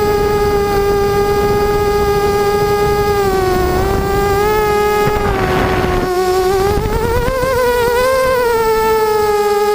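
Quadcopter's brushless motors and propellers whining steadily. The pitch sags a few seconds in, a brief rushing noise follows, and then the pitch rises and wavers as the throttle changes before settling again.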